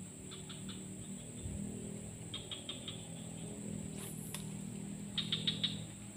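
Three short series of rapid high chirps from a small animal, over a steady high-pitched hum and a low drone; two sharp clicks a little after halfway.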